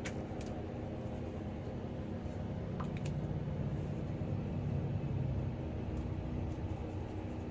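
Steady low mechanical hum and rumble with a faint constant tone, with a few faint clicks.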